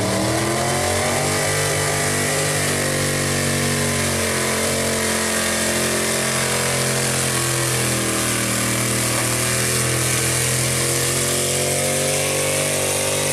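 Chevrolet square-body 4x4 pulling truck's gasoline V8 at high revs under load while it drags a weight-transfer sled. The pitch holds high, dips briefly about four seconds in, and climbs again near the end.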